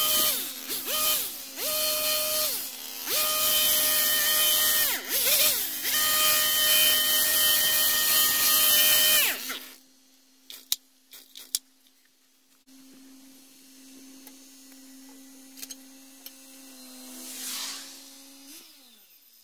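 Stihl HS 46 two-stroke petrol hedge trimmer running at full throttle as it cuts the hedge, the throttle briefly let off and reopened several times. After about nine seconds it drops to a quiet idle, and near the end the engine dies away with a falling pitch as it is switched off.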